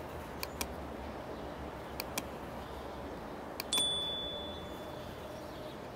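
Subscribe-button sound effect: pairs of sharp mouse clicks, then a bright bell ding a little under four seconds in that rings away over about a second, over a faint steady background.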